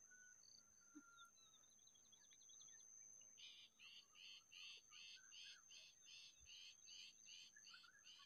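Faint outdoor bird sounds over a steady high-pitched whine. A brief chatter comes about a second in, then from about three seconds a rapid, regular series of chirps at about three a second.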